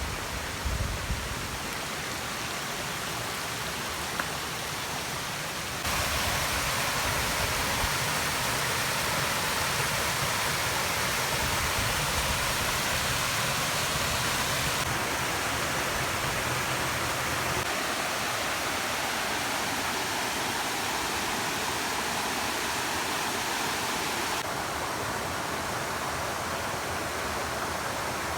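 Steady rushing of flowing water, like a forest stream or small cascade. It gets abruptly louder about six seconds in.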